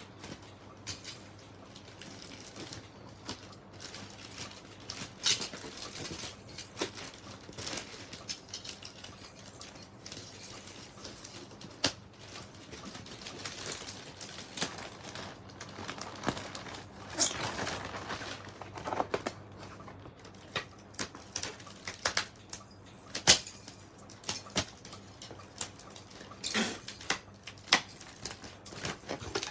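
Plastic mailer bag and bubble-wrap packaging rustling and crinkling as they are opened and handled, with irregular sharp snaps and clicks.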